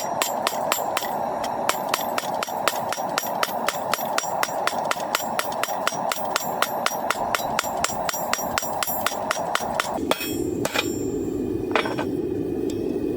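Hand hammer forging hot coil-spring steel on an anvil, at about four to five ringing blows a second for some ten seconds, then two single blows: the round spring bar is being flattened into flat or square stock. A steady rushing noise runs underneath.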